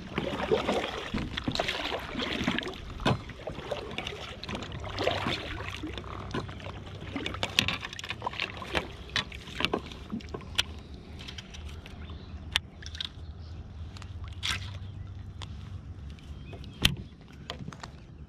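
Water sloshing around a kayak as it is turned, heaviest over the first few seconds. Sharp knocks and clicks are scattered throughout.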